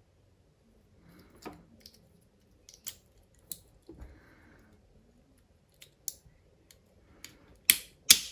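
Small plastic clicks and taps from a car's power mirror switch being handled and clipped back together, with two louder sharp clicks near the end.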